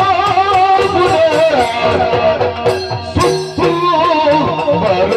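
Yakshagana music: a bhagavata singing a wavering, ornamented melody over a steady drone, with regular drum and cymbal strokes keeping the beat.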